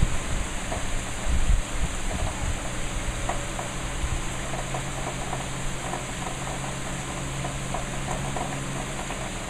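Steady hiss of heavy hurricane rain falling, with a low steady hum underneath.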